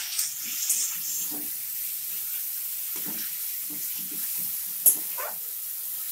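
Marinated chicken pieces sizzling in hot mustard oil and spice paste in a metal kadai, stirred with a metal spatula that scrapes the pan in short repeated strokes, with one sharp clink of metal on metal a little before five seconds in.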